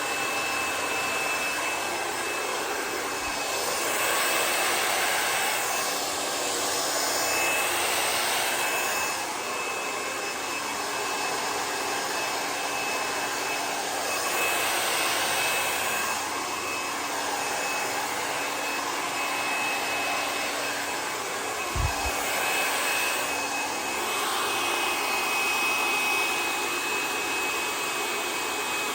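Handheld hair dryer running steadily, blowing air over wet fluid-art paint to spread the colours and open cells. The rush of air swells and eases every few seconds as it is moved over the painting, over a steady high motor whine.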